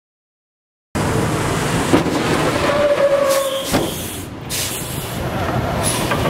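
About a second of silence, then the steady rumble and hiss of a heavy semi truck, with a brief whine about three seconds in and a sharp knock just before four seconds.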